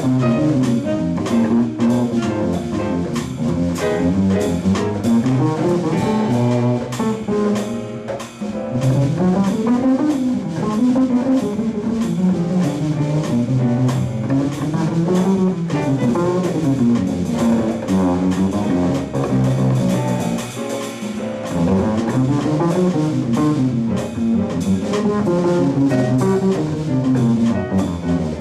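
Jazz played on a four-string acoustic-electric bass guitar, its low notes stepping up and down in long rising and falling lines, with a drum kit keeping time behind it.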